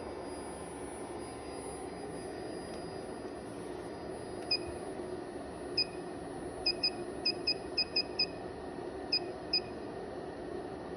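Front-panel key beeps of a DDS function/arbitrary waveform generator as its settings are keyed in: about eleven short, high beeps starting about four seconds in, several in quick succession, over a steady background hum.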